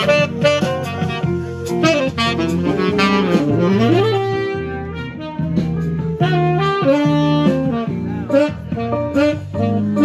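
Saxophone played live, a jazzy melody of held notes and quick runs, with lower held accompaniment notes sounding underneath.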